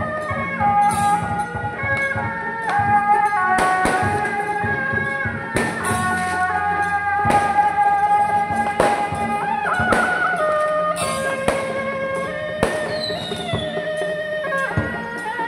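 Music: a melody of held, stepping notes over occasional sharp percussion strikes.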